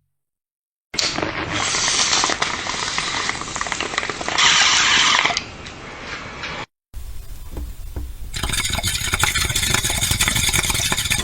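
Water bong bubbling as smoke is pulled through it: a steady gurgle for about six seconds, louder about two-thirds of the way through, then after a short break a second hit, bubbling over a low rumble that swells toward the end.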